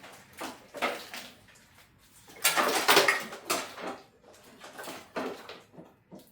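Irregular metallic clinks and rattles of tools and parts being worked in a car's engine bay, with a longer clattering burst about two and a half seconds in.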